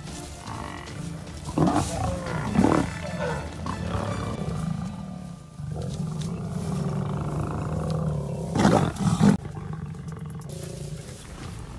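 Lions growling and snarling in several loud bursts, two about two seconds in and two more near nine seconds, with a drawn-out lower growl between them.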